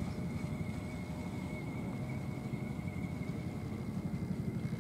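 RC model cruiser's brushless motor running at a steady cruising speed, heard as a thin, even high whine over a low, steady outdoor rumble.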